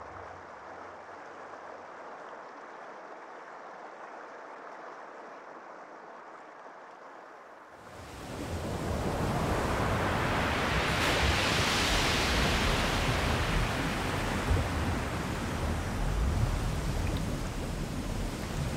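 Rushing water sound effect: a soft wash of flowing water that swells about eight seconds in to a loud surge like breaking surf, then keeps rushing steadily.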